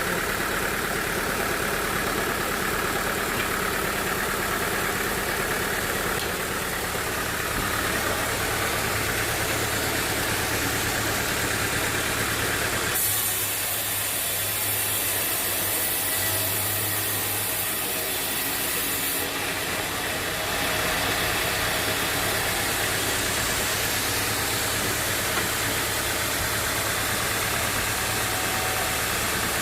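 Sawmill machinery running steadily with a low hum. A harsher high hiss is added for about six seconds in the middle.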